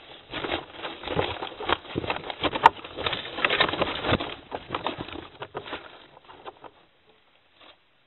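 Wing-flapping and scuffling of a barn owl and a female kestrel clashing at the entrance of a hollow tree-stump nest box: a dense rustle of feathers with many small scrapes and knocks on the wood. It dies away after about six seconds as the kestrel settles.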